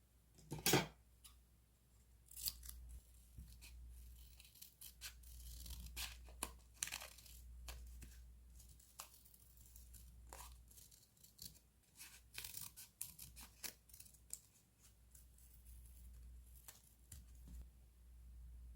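Paper crafting sounds from diary decorating: scissors snipping and masking tape and sticker paper being torn and peeled, a string of short, crisp strokes, the loudest about a second in.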